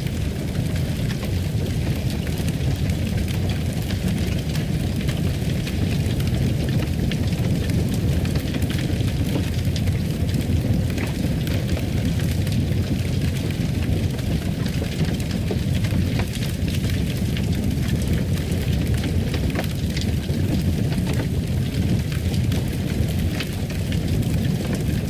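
Fireplace fire crackling, with scattered sharp pops over a steady low rumble of flame.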